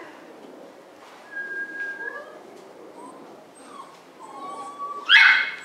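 Puppy whining: several thin, high whines, some held steady and some sliding, then one loud yelp near the end.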